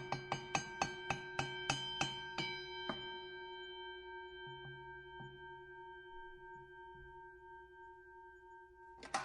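Boxing ring bell struck rapidly about a dozen times, the strikes spacing out over the first three seconds, then ringing on and slowly fading. One new strike comes near the end.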